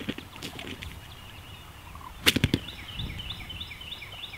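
Male wild turkeys sparring: wing flaps, and about two seconds in a short, loud burst of rapid strokes. A fast series of high chirps follows near the end.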